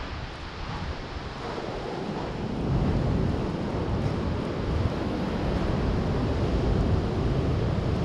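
Steady rushing of wind on the microphone mixed with surf from a choppy sea, growing louder about two and a half seconds in.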